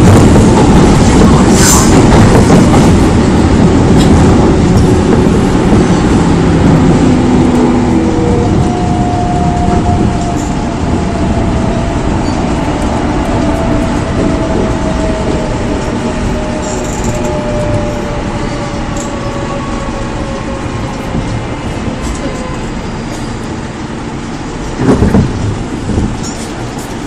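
Running sound of a Seoul Metro 4000-series electric train with Mitsubishi GTO VVVF inverters: the train slows, its inverter tone sliding steadily down in pitch as the running noise of wheels on rail fades. A few loud knocks come near the end.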